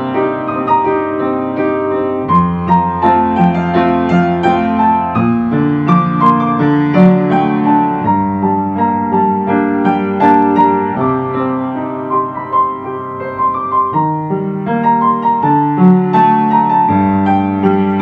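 Instrumental piano music: a slow melody of struck notes over held low chords.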